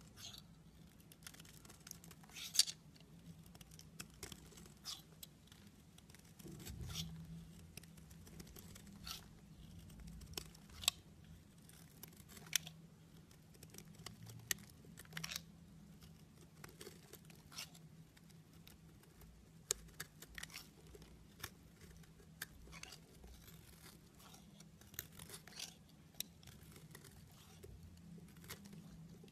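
Utility knife blade carving thin curls off a bar of soap: irregular crisp scraping crackles, with a few sharper snaps among them.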